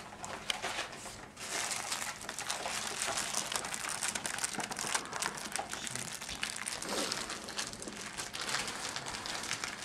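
Close, continuous crinkling and crackling of wrapping paper being crumpled and handled, starting about a second in.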